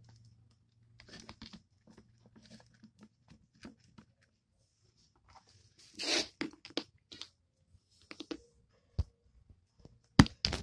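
Handling noises from a plastic model horse being moved about by hand: scattered light clicks, taps and rustles. A louder scraping rustle comes about six seconds in, and a sharp knock comes near the end.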